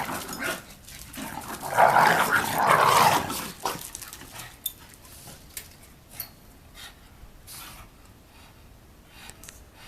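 Two dogs, a pug and a Shiba Inu, play-fighting: a loud bout of growling and scuffling about two seconds in, then dying down to a few faint scuffles and clicks.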